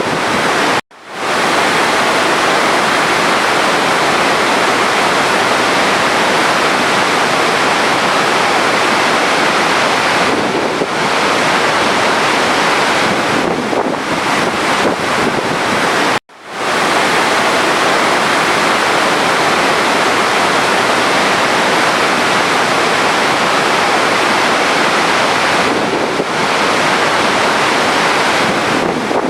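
Steady rush of running water. It cuts out abruptly for an instant about a second in and again about halfway through, each time swelling back up within a second.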